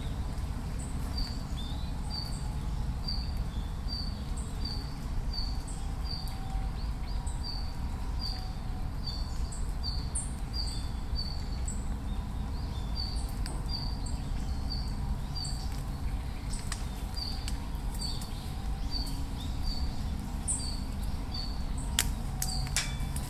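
A small bird repeating short high chirps, about two a second, over a steady low outdoor rumble, with a few sharp snaps near the end.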